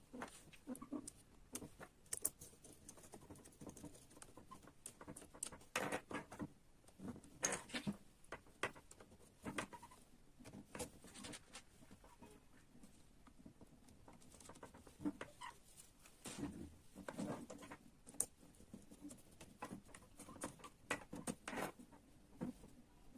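Small parts of a model excavator kit being handled: faint, irregular clicks, taps and scrabbling, with busier clusters of clicks about six seconds in and again about sixteen seconds in.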